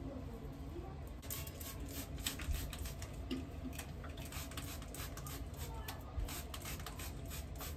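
Handheld spray bottle misting water onto hair: a quick, irregular run of short sprays that starts about a second in.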